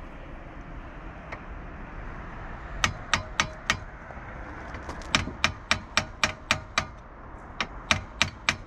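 Hammer blows on a steel bolt in the front knuckle of a Can-Am X3, driving at a ball-joint bolt that is stuck. The sharp metallic strikes, each with a short ring, start about three seconds in and come in three runs of several blows at about three a second.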